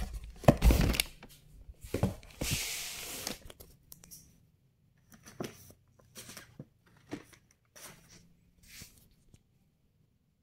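Cardboard fireworks cake boxes being lifted, slid and set down against a cardboard carton. There are a few sharp knocks in the first second, a longer scraping slide about two and a half seconds in, then scattered softer rustles and bumps.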